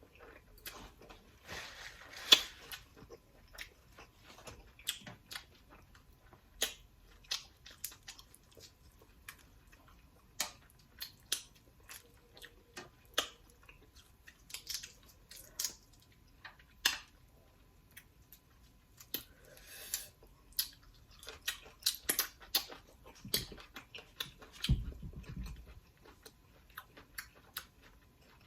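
Close-miked mukbang eating: a person chewing and smacking, with a steady string of short sharp mouth clicks. Near the end comes a brief hummed "mm".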